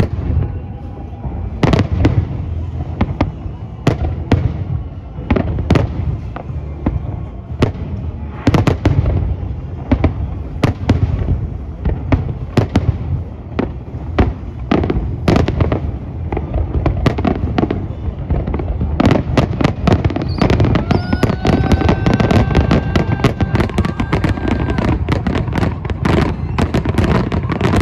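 Aerial firework shells bursting in a large salute display: repeated sharp bangs over a deep rumble, thickening into a dense, almost continuous barrage about two-thirds of the way through. A steady high tone joins near the end.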